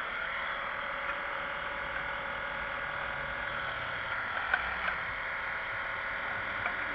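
Steady background drone, with a few faint clicks and clinks from tools being handled.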